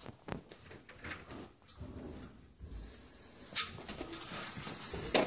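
Horizontal window mini blinds being handled, the slats clicking and rattling against each other, with one sharp clack about three and a half seconds in.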